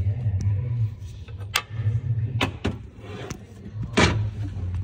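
Spanner and auxiliary belt tensioner on a Citroën C4 Picasso: a few sharp metal clicks and clunks as the tensioner is levered and its locking pin released to tension the new belt, the loudest about four seconds in, over a low rumble.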